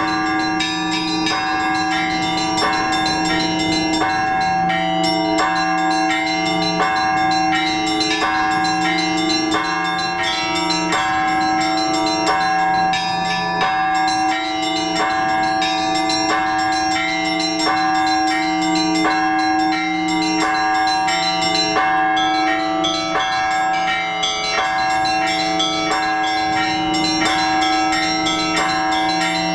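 Orthodox church bells ringing, several bells together: the small bells are struck in a quick repeating pattern over the long hum of the larger bells.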